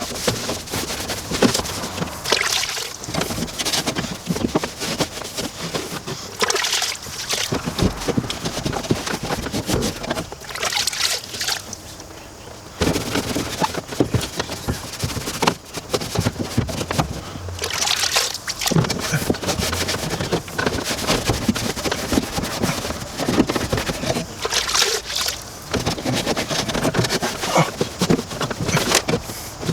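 Water sloshing in a bucket and a wet rag scrubbing and wiping grime off car bodywork with degreaser, in uneven strokes.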